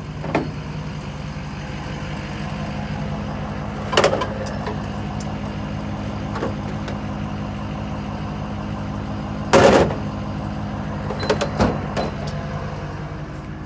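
Drill rig's engine running steadily at idle, with a few knocks and clunks over it; the loudest clunk, a short rattle, comes about ten seconds in.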